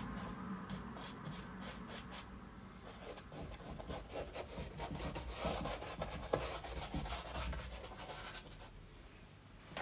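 Paintbrush scrubbing oil paint onto a primed box canvas: a dry, scratchy rubbing in short, irregular strokes, busiest in the middle, with one sharper tick.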